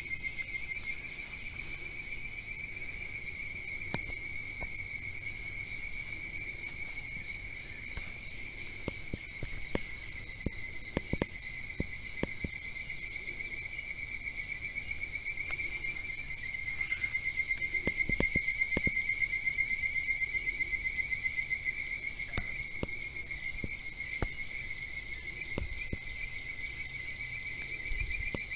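A steady chorus of trilling insects, a high, rapidly pulsing drone. Scattered soft clicks and knocks come over it, most of them in the middle and later part.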